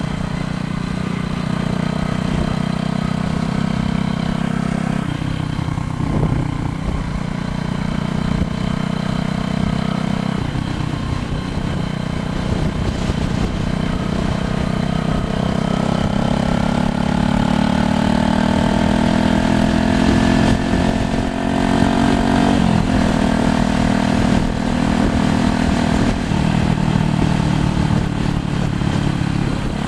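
A motor vehicle engine running throughout. Its pitch drops suddenly about 5, 10 and 22 seconds in, like gear changes, and climbs in between as it speeds up.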